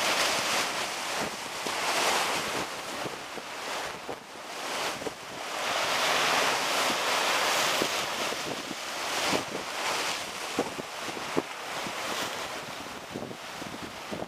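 Wind buffeting the microphone over choppy sea, with waves washing and breaking. The noise swells and eases in gusts, with a few sharp pops in the second half.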